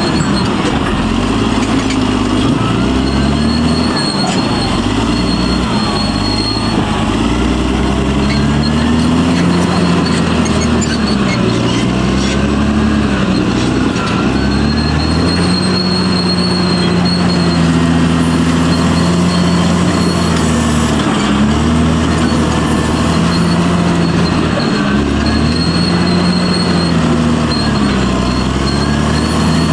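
Caterpillar D6R bulldozer's diesel engine working under load, its pitch rising and falling over and over as the load comes and goes. A faint high whine comes and goes on top of it.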